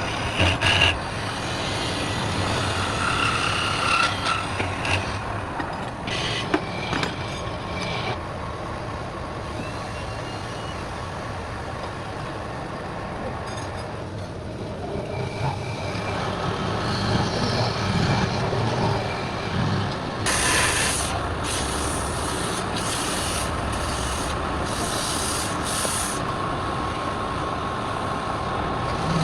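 Wood lathe running with a steady motor hum while something rubs and scrapes against the spinning wood, in uneven strokes that grow louder and come in short bursts about two-thirds of the way through.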